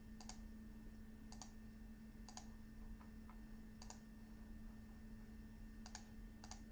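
Sharp clicks from working at a computer, about six of them spaced irregularly, over a steady low hum.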